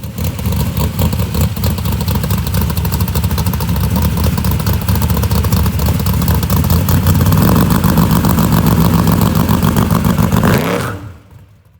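Chevy Vega wagon's swapped-in V8 engine running with a fast, even pulse, picking up a little about two-thirds through, then fading out near the end.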